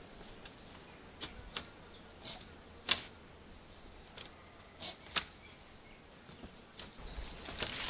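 Supplejack vine being pulled and woven between wooden stick posts: scattered light clicks and scrapes, one sharper crack about three seconds in, and louder rustling near the end.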